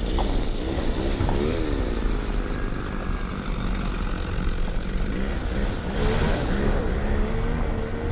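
Car driving slowly over a rough road, with a steady low engine and road rumble heard from inside the cabin.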